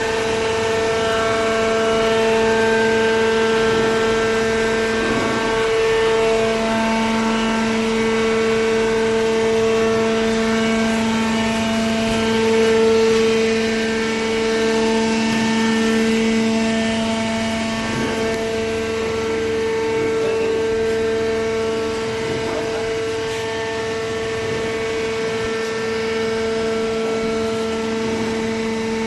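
Semi-automatic horizontal cardboard baler's hydraulic power unit running with a steady mechanical whine and hum; the lower hum tone gets stronger about six seconds in.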